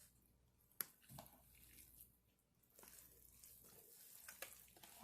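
Near silence, with faint soft squishing as bare hands rub a butter and seasoning mixture into raw turkey skin, and one sharp click a little under a second in.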